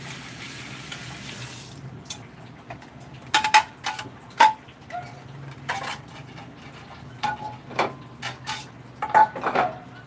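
Kitchen faucet running onto a dish in the sink for about two seconds, then stopping. Then a string of sharp clinks and knocks as plates and bowls are handled and set against each other.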